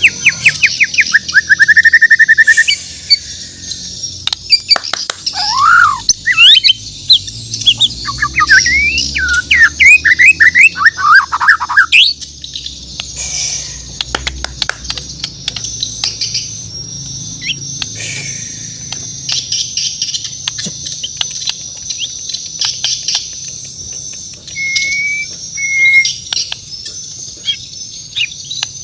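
White-rumped shama (Bornean murai batu) singing: a fast trill, then loud whistled phrases sweeping up and down in pitch. About halfway through the song drops away, leaving a steady high-pitched chatter with scattered clicks and two short whistles near the end.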